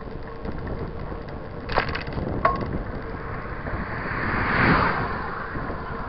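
Mountain bike rolling on asphalt: steady tyre rumble and wind hiss on the bike-mounted action camera, with two sharp clicks about two seconds in and a louder rush of noise that swells and fades around four to five seconds in.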